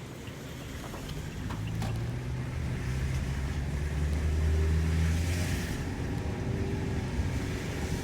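Taxi driving on a wet road: a low engine hum with tyre hiss, growing louder from about a second in and easing off at about six seconds.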